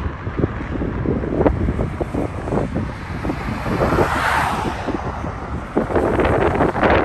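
Strong gusty wind buffeting the microphone, a ragged low rumble with a louder rushing gust about four seconds in.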